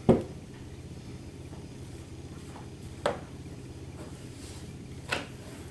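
Three sharp knocks about two to three seconds apart, the first the loudest, over a steady low hum in the kitchen.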